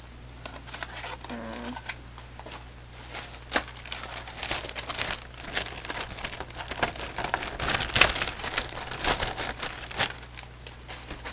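Thin plastic shopping bag crinkling and rustling as it is handled, with irregular crackles that grow busier and louder about halfway through.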